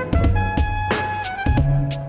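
Background music with a steady drum beat, a bass line and a pitched melody.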